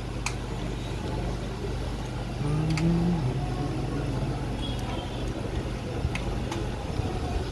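Steady low mechanical hum with a few sharp clicks. A louder droning swell with a slightly rising tone comes about two and a half seconds in and fades within a second.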